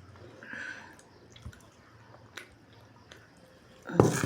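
Someone eating rice and pork: soft wet chewing and small mouth clicks, with a sudden louder sound near the end.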